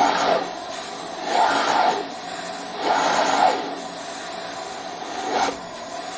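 Vacuum cleaner running with a steady whining hum, swelling four times into louder rushes of air as the suction changes.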